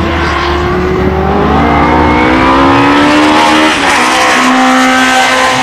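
Pilbeam MP87 single-seater racing car, with a 2-litre engine, revving hard under acceleration, its pitch climbing steadily. About four seconds in there is a brief break, and then the note comes back lower and steadier.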